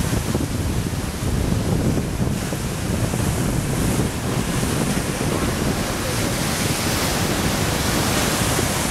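Sea surf surging over seaweed-covered rocks and churning into foam, a steady loud rushing of water, with wind buffeting the microphone.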